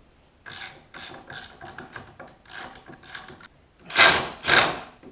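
A cordless power ratchet runs in short trigger bursts, tightening the nuts of a new carbide runner on a snowmobile ski. About six lighter bursts come roughly two a second, then two much louder bursts follow near the end.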